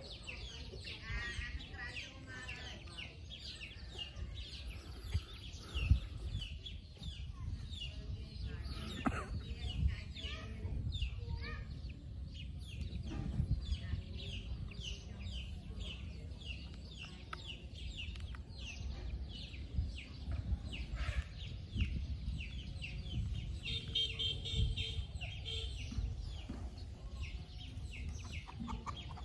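Chickens clucking and cheeping: a steady run of short, falling chirps, over a low rumble on the microphone, with one sharp thump about six seconds in.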